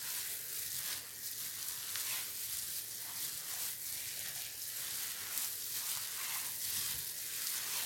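Hands in thin plastic food gloves kneading and squeezing a crumbly, dry dough of polvilho doce, wheat flour, sugar, eggs and oil in a glass bowl. Soft, repeated rustling and crumbling strokes, about two a second. The dough is still at the crumbly 'farofinha' stage, short of egg.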